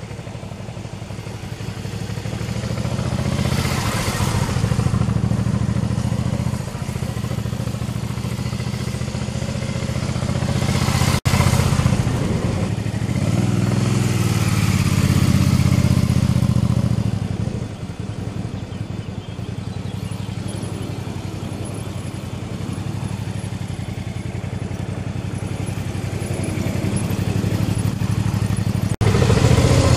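Suzuki V-Strom 650's V-twin engine running at low speed. Its note rises and falls with the throttle and is loudest about midway, as the bike passes close.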